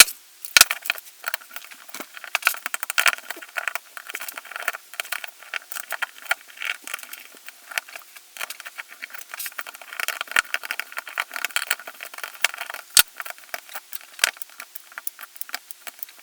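Screws being backed out of an airsoft MP5's V2 gearbox shell with a screwdriver: a dense run of small light clicks and scratches of metal on metal. A few sharper taps stand out, one just after the start and three more later on.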